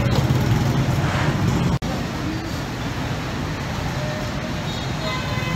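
Street ambience: steady traffic noise with faint voices in the background, broken briefly by an edit about two seconds in.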